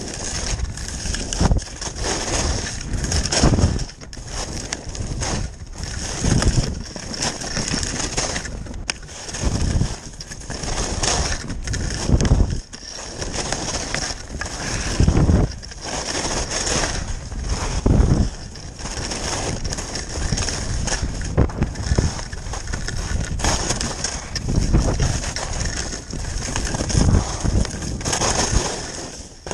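Faction skis scraping and carving over firm packed snow at speed, the hiss swelling and easing every couple of seconds as the skier turns, with wind buffeting the microphone.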